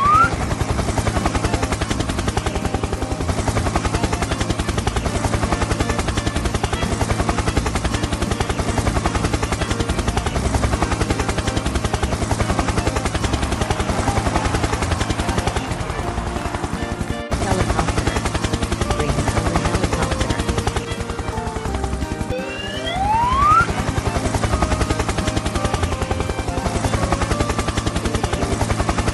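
Helicopter rotor sound effect: a rapid, steady chopping that runs on under background music. About two-thirds of the way through, a rising whistle-like tone sweeps up, as the helicopter changes colour.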